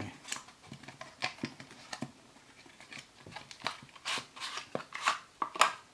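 Small paperboard box of a Galaxy SmartTag being worked open by hand: irregular scrapes, rustles and light clicks of card flaps and packaging, louder and busier toward the end.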